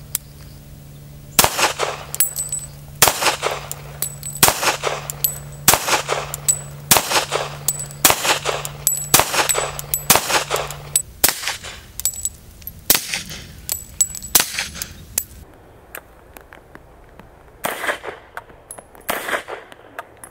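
Suppressed gunshots through a Tion Grenadier 45 suppressor: a long string of single shots from a Kimber .45 ACP pistol, roughly one every half second to second with faint metallic pings after some of them, then two spaced shots from a 9mm HK SP5 near the end.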